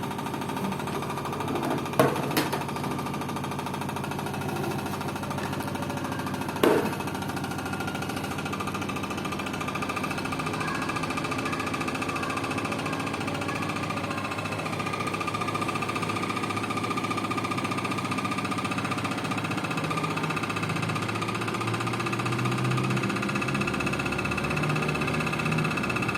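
LG FV1450S1B front-loading washing machine in its spin cycle, running steadily with a strange noise like a loose bolt, a sign of something loose on the machine. A few sharp knocks come in the first seven seconds.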